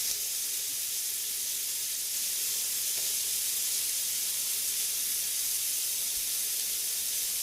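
Marinated chicken pieces sizzling in hot cooking oil in a frying pan: a steady, even, high hiss.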